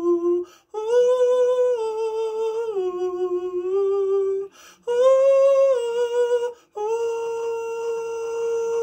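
A man humming a melody unaccompanied, in long held notes that step up and down, with brief breaks for breath between phrases. The last phrase is one steady held note.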